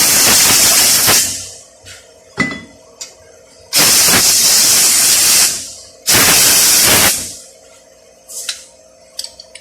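Compressed air blasting from an air blow gun in three bursts of a second or two each, with a few light metal clicks between them.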